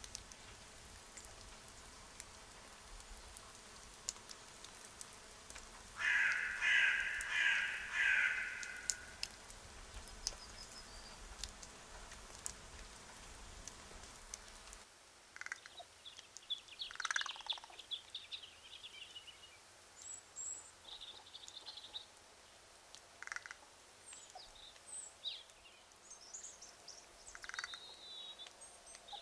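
A crow caws three times, loud and harsh, against a steady patter of autumn rain. About halfway through, the rain noise drops away and small songbirds chirp and call on and off.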